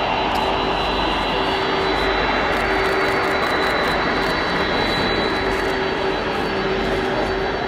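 The twin jet engines of a Boeing 767 freighter running at low thrust as it taxis, a steady rushing noise with a steady whine on top and no change in level.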